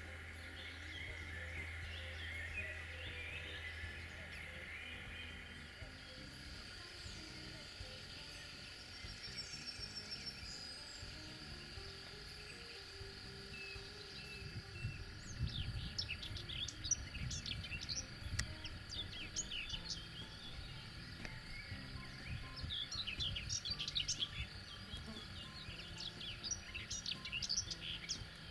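Birds singing in an open meadow, with clusters of quick chirping notes in the second half over a steady faint high-pitched background.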